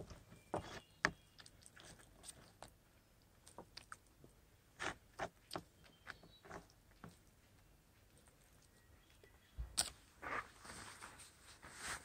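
Metal spoon scooping food out of an aluminium foil packet: scattered soft crinkles of foil and scrapes of the spoon, with a denser stretch of foil rustling near the end.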